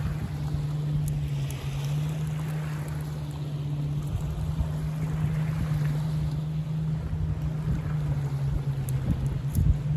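A motorboat engine droning steadily out on the lake, one unchanging low tone, with wind buffeting the microphone and a low bump near the end.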